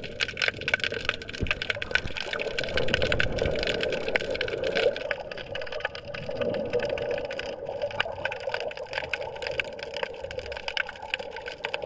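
Underwater ambience heard through a submerged camera housing: a steady, muffled water rush with many scattered crackling clicks.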